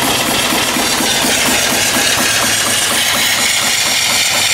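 Small vertical single-cylinder steam engine running steadily: a constant hiss of steam over a quick, even beat of the engine. It is belt-driving an alternator that is charging a battery, and the charging load slows it.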